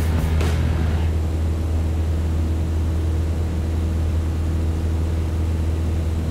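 PAW Patrol Air Patroller toy plane playing its electronic aircraft-engine sound effect, a steady low drone. A few plastic clicks from handling the toy come in the first half-second.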